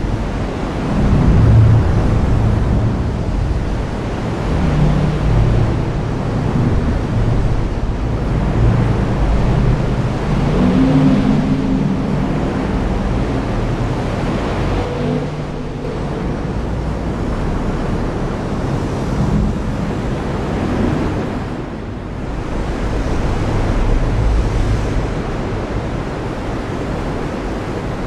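Heavy rain falling steadily, with a low rumbling underneath that swells and fades.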